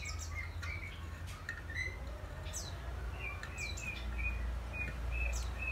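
Small birds chirping again and again: short, high, downward-sweeping chirps and brief notes, over a steady low rumble.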